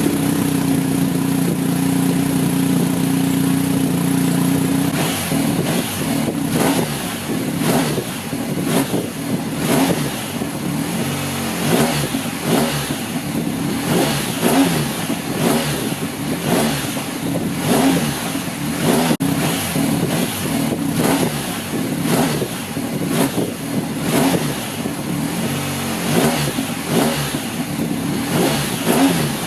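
BMW R1250 GSA boxer-twin engine running through its standard exhaust. It holds a steady idle for about five seconds, then is revved again and again, the note rising and falling.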